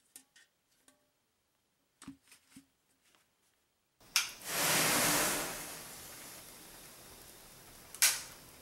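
Faint clicks and taps of a hand handling an emptied metal beer-keg shell, then about four seconds in a power-strip switch clicks and dozens of wired match heads ignite together in a loud fizzing flare that settles into a steady hiss of burning. Another sharp switch click comes near the end.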